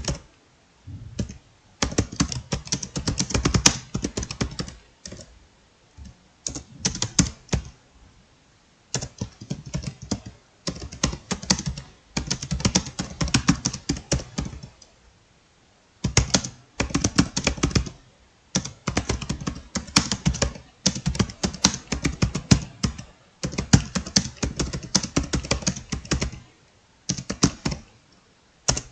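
Fast touch-typing on a computer keyboard: rapid runs of key clicks in bursts of a few seconds, broken by short pauses.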